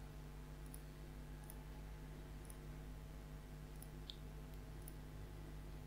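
A few faint computer mouse clicks, spread unevenly, over a low steady hum.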